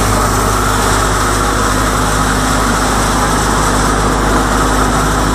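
Threshing machine running steadily as dry crop plants are fed into it, a loud, even mechanical noise with a steady low hum from its drive.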